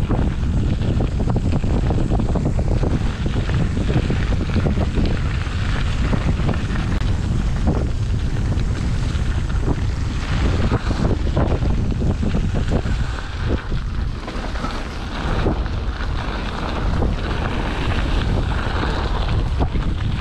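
Mountain bike descending a dirt trail: steady wind noise on the microphone over the tyre noise, with occasional knocks and rattles as the bike runs over bumps.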